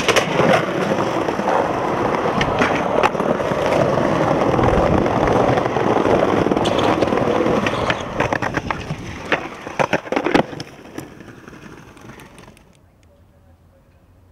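Skateboard wheels rolling over rough paving and the trucks grinding along a concrete ledge, a long continuous scraping rumble. It ends in a quick run of sharp cracks of the board hitting the ground about nine to ten seconds in.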